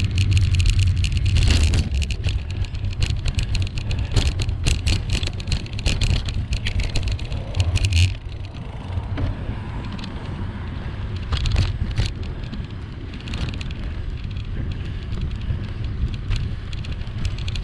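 Wind rumbling on the microphone of a camera on a moving bicycle, with tyre noise from the road and clicks and rattles over bumps. The tyres' hiss drops away about halfway through, where the bike rolls onto smooth new tarmac.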